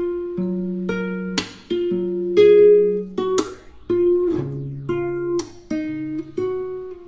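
Instrumental music: an acoustic guitar strumming chords, with a crisp strum starting each new chord about once a second.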